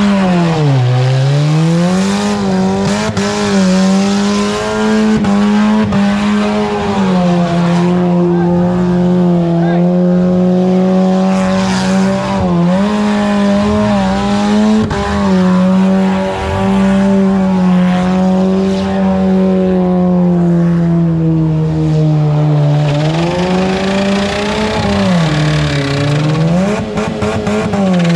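Demolition derby car's engine run loud at high revs for long stretches, its pitch dipping and climbing back now and then as the car pushes against others, while its wheels spin in the dirt.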